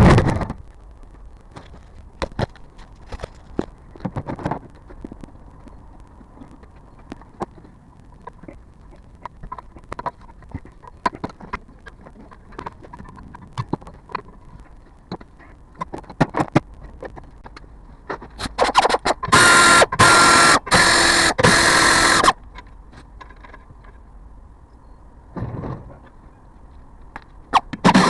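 Hyundai Grandeur HG making scattered short knocks and clicks over a faint steady hum, the front and rear noises being documented. A loud rough noise, broken by brief gaps, comes about two-thirds of the way through and lasts some four seconds.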